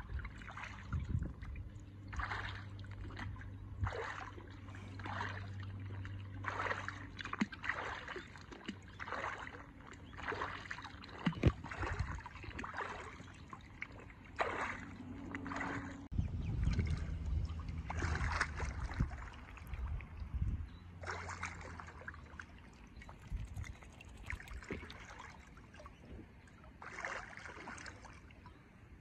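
Water splashing and lapping at a small boat on a lake, in short splashes about once a second, over a low steady hum that comes and goes.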